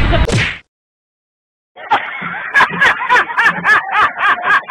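Music cuts off abruptly, then after about a second of silence a man breaks into loud laughter: short, rapid bursts of 'ha', about four a second.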